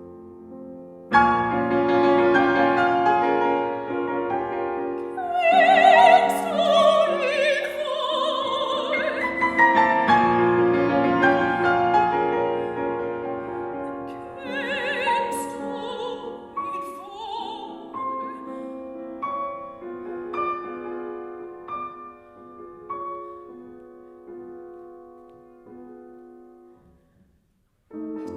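Soprano singing a classical art song with piano accompaniment. The piano comes in loudly about a second in, the voice sings with a wide vibrato through two phrases, and the piano then dies away to a brief silence near the end.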